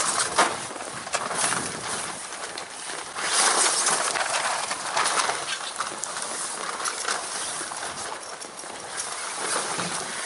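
Sailcloth and heavy fabric boat covers flapping and rustling in gusty wind, in uneven surges, loudest a little past the middle.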